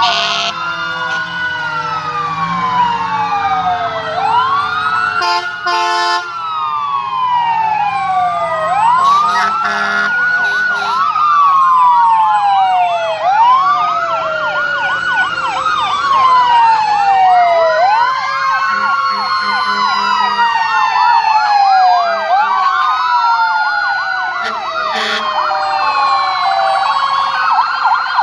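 Sirens of several fire engines wailing together, their tones rising and falling every few seconds and overlapping out of step. A short blast of steady tones cuts across them about five seconds in.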